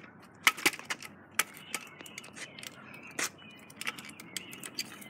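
Kick scooter clattering as it is ridden on a concrete driveway: irregular sharp clicks and knocks, the loudest about half a second in.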